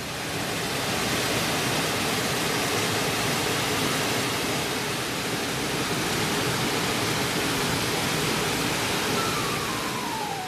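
Stream water rushing over a low weir: a steady, even rush that swells up in the first second. Piano music starts near the end.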